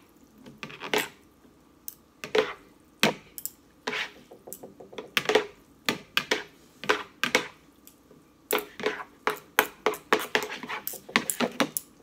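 Wooden chopsticks clicking and knocking against a bowl while stirring sauced instant noodles. The knocks come irregularly and grow thicker in the last few seconds.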